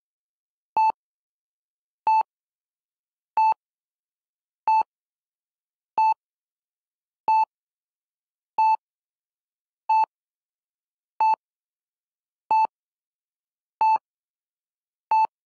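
A short electronic beep repeating steadily, twelve times at about one every 1.3 seconds, with silence between beeps.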